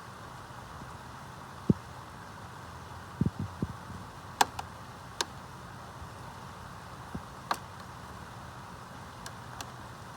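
Steady hurricane rain falling, with scattered sharp taps of single heavy drops striking a hard surface, a cluster of them about three seconds in.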